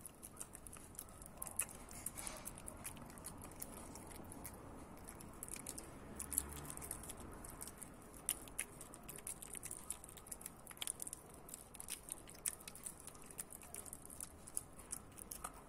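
Pinscher puppy eating a peeled banana held out by hand: faint, irregular mouth clicks and smacks of chewing.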